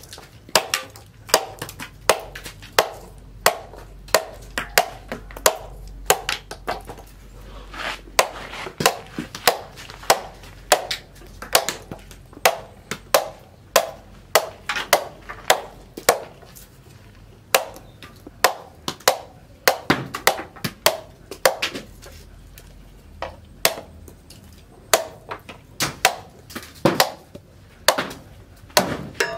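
A steel machete forged from a sprocket chopping a green bamboo stalk: a long series of sharp chops, about one to two a second, with a few brief pauses.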